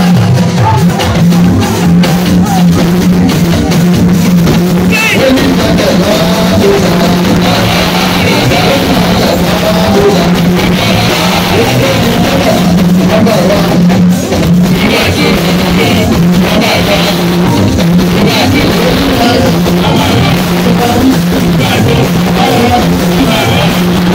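Loud music with a steady, pulsing beat and singing, playing without a break.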